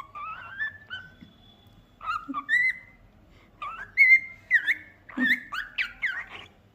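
Cockatiel whistling its song: a run of short whistled notes that glide up and down, broken by brief pauses.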